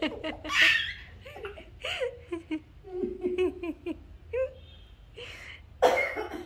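A baby and a woman laughing and giggling, with short pitched baby babbles between the laughs; loud breathy laughs about half a second in and again near the end.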